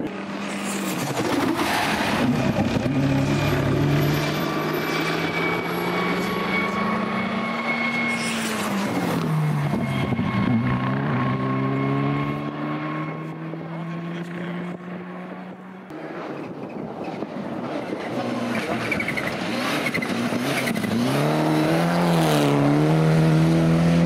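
Rally cars driven flat out on a slippery special stage, engines revving hard. The pitch climbs through each gear and drops sharply under braking and downshifts. Near the end one engine note wavers up and down on and off the throttle as the next car comes through.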